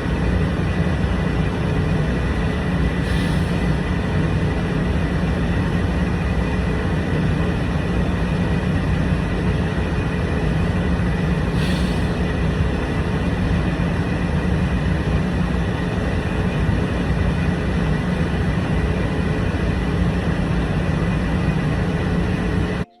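Steady hiss with a constant low hum, unchanging throughout, cutting off abruptly right at the end.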